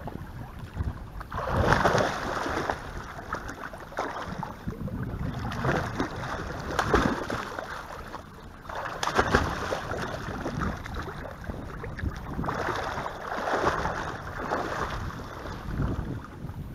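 Lake water splashing and sloshing as spaniels swim and paddle close by, coming in uneven surges several times.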